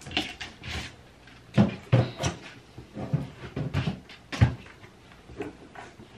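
Items being moved around and set down inside a bathroom under-sink cabinet: an irregular string of knocks and clunks, loudest about two seconds in and again after four seconds.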